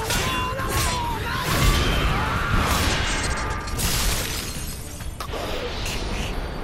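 Sword-fight sound effects: several sharp metal clashes and crashes with the sound of blades shattering, over background music.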